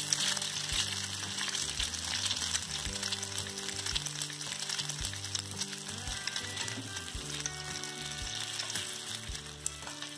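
Slices of egg-and-milk-soaked bread sizzling steadily as they deep-fry in hot oil, slightly louder in the first second.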